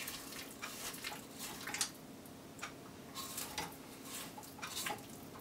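A spatula scraping down the inside of a stainless steel stand-mixer bowl and its beater: soft, irregular scrapes and light clicks against the metal.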